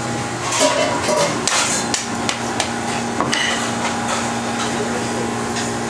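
A long fish knife forced through the bones of a large bigeye tuna carcass, giving a series of sharp, irregular knocks and cracks, mostly in the first half, over a steady hum.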